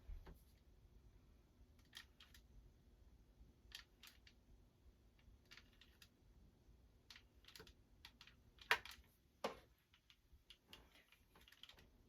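Near silence broken by faint, scattered clicks and rustles of hair and a hair crimper being handled, with two louder clicks about three-quarters of the way through.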